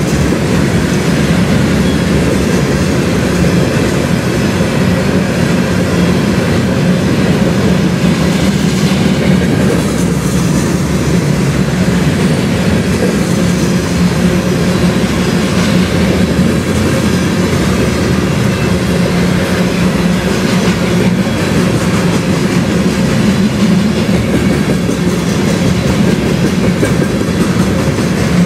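Covered hopper cars of a CN sand train rolling steadily past at track side: a continuous, even rumble of steel wheels on the rails.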